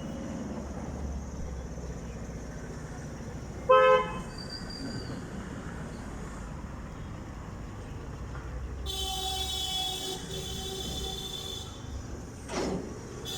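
Steady outdoor background noise with a short, loud horn toot about four seconds in, then a longer, quieter horn-like tone from about nine to twelve seconds.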